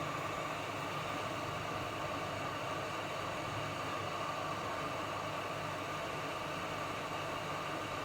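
Hot-air rework station blowing with a steady hiss, set against a low hum.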